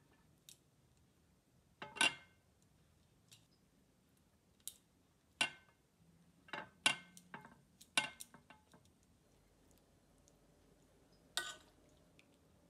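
Serving utensil clinking against a glass plate as pasta and vegetables are set down on it: a string of light, irregular clinks with a short glassy ring, the loudest about two seconds in.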